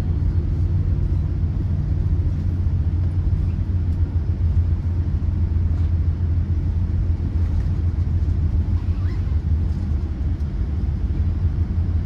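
Steady low rumble of a Boeing 787-9 airliner's cabin noise, even throughout with no distinct events.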